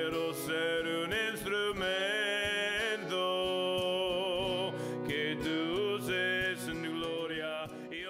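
Spanish worship song: a singer holding long notes with vibrato over instrumental backing with a steady beat, starting to fade out near the end.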